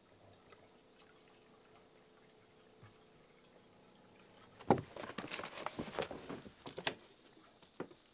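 Quiet room with a faint hum, then about halfway in roughly two seconds of scratchy rustling and sharp clicks, loudest at the start: a kitten's claws and paws scrabbling on a corrugated cardboard scratcher box. One more single click follows near the end.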